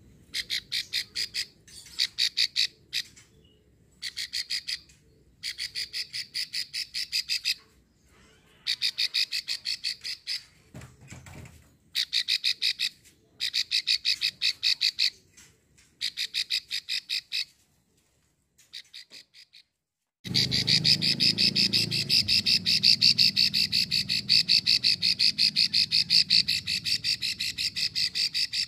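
Female plain prinia (prenjak sawah) giving its 'klik' call: fast, dry clicking rattles in bursts of one to two seconds with short pauses between. About twenty seconds in, one long unbroken rattle starts, with a low hum behind it.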